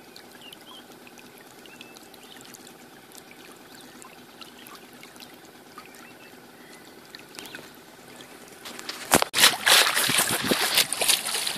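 Water lightly trickling and lapping, then about nine seconds in a sudden run of loud, close splashing and sloshing of water.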